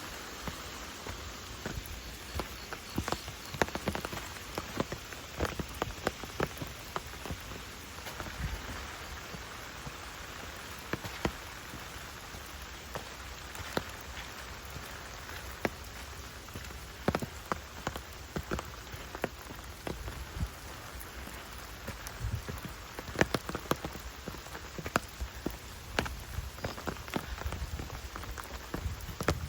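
Rain falling in woodland: a steady patter with many scattered, sharper drops landing at irregular moments.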